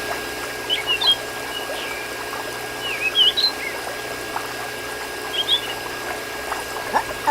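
Water pouring and trickling steadily, with a faint steady whine under it. Short high chirps come about a second in, around three seconds, and again past five seconds.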